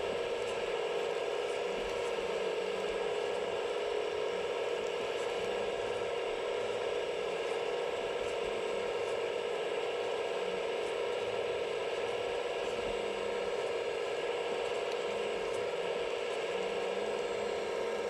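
Small electric motor on a 1/14-scale RC excavator running with a steady, unchanging whine. This is the drive for either the hydraulic pump or the suction unit.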